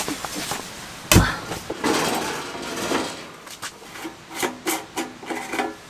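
A heavy thump about a second in, then rubbing and a run of short clatters as camping gear is handled and set in place.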